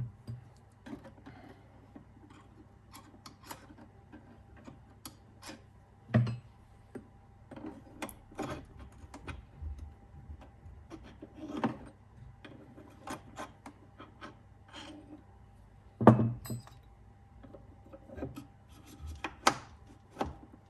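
Pad parts being handled and pressed into place on an electric unicycle: irregular clicks, knocks and rubbing, with louder knocks about six, twelve and sixteen seconds in.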